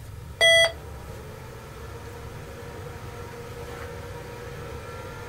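IBM PC XT clone powering on: a short electronic beep about half a second in, then a steady mechanical hum with a faint whine that slowly rises in pitch as the MFM hard drive spins up.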